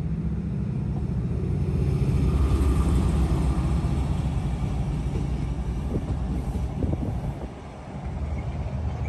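Amtrak diesel locomotive passing directly underneath, its engine running with a steady low rumble that is loudest about two to three seconds in and eases briefly near the end.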